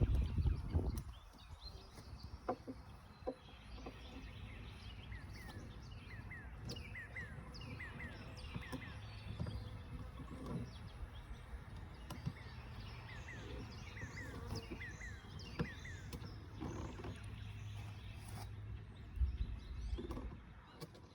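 Small birds chirping repeatedly in short falling chirps over a faint low hum, with a few scattered clicks.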